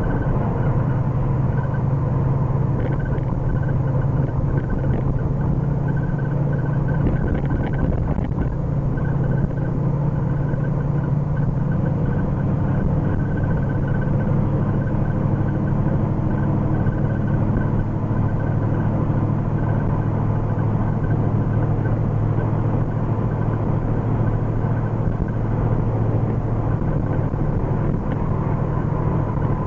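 1979 Ford Mustang Pace Car driving at a steady cruise, heard from inside the cabin: a continuous drone of engine and tyre noise. The engine is still being run in.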